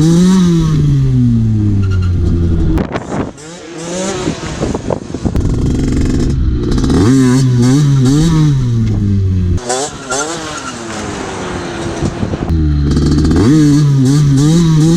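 Derbi Senda two-stroke with a 77 cc Stage 6 kit revving hard under wheelie throttle, its pitch wavering up and down as the throttle is worked. Twice the engine drops off, about three seconds in and again near ten seconds, then revs back up with a rising pitch.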